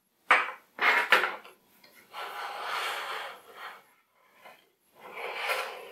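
Hard plastic knocks and clacks, about three in the first second, then scraping and rubbing as the Hasbro Neutrona Wand replica is shifted and turned on its plastic display stand on a tabletop.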